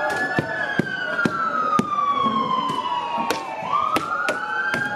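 Police van siren wailing, its pitch falling slowly over about three seconds and then rising again near the end. About nine sharp knocks or bangs come irregularly over it.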